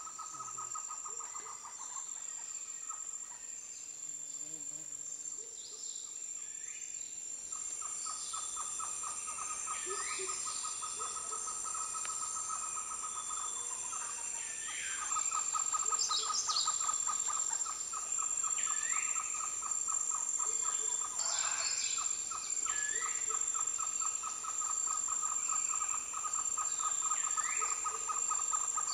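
Costa Rican rainforest wildlife chorus: a steady high insect drone, a fast pulsing trill that stops about a second in, returns about seven seconds in and runs on, and short rising calls repeated every two to three seconds.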